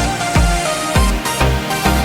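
Electronic background music with a steady beat of about two bass-drum strikes a second under sustained synth tones.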